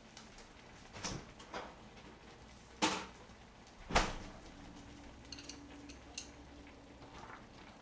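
Kitchen items handled on a counter: a few sharp knocks and clicks, the loudest about three and four seconds in, with lighter ticks after, over a faint steady hum.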